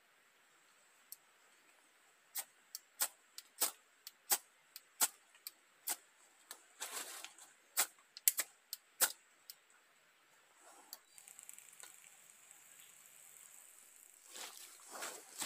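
A small camping stove being lit: a run of sharp igniter clicks, about two a second for some seven seconds, then a soft steady hiss of the burner from about eleven seconds in. Louder rustling and knocks near the end.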